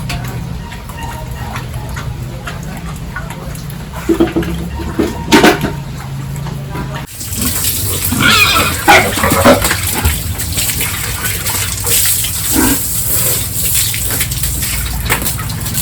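Pigs grunting and squealing, loudest in a burst of squeals about eight to ten seconds in, with running water in the first half; the background changes abruptly about seven seconds in.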